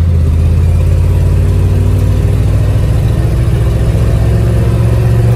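Engine of a 1971 GMC dump truck running at a steady pitch, heard from inside the cab.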